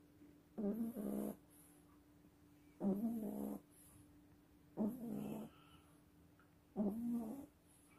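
French bulldog snoring while asleep: four snores about two seconds apart, each under a second long.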